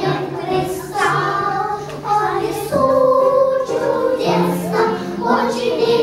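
Group of young girls singing a children's song together, with held sung notes changing about once a second.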